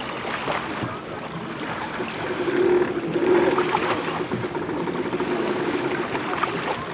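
Jet ski engine droning, a steady hum that comes in about two seconds in and fades near the end, over a haze of wind and water noise.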